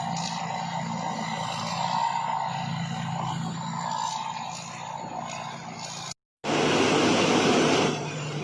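Combine harvester engine running steadily. About six seconds in the sound cuts out for a moment, then a louder rushing noise runs for about a second and a half before the steady running returns.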